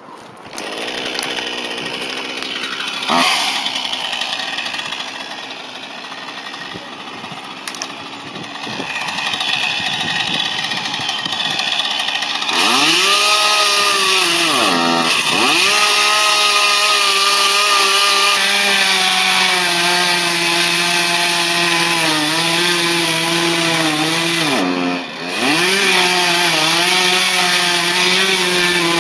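Chainsaw cutting through a log, quieter for the first twelve seconds or so, then loud at high revs. Its pitch dips sharply and comes back up a few times.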